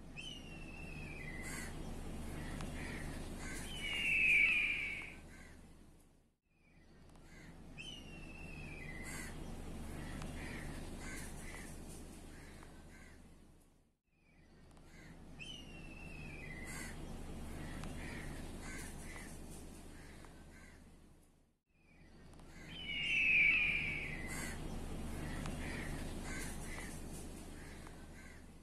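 Crow cawing outdoors over a low steady background hum, with a falling call near the start of each passage and a loud harsh caw twice. A passage of about seven seconds, faded in and out, repeats four times.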